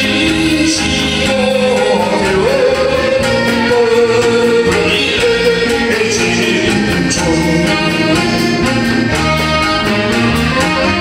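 A man singing into a microphone with a live band backing him, the drums keeping a steady beat.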